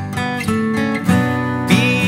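Acoustic guitar music without singing: strummed chords and plucked notes with fresh attacks about every half second, and a higher held melodic note coming in near the end.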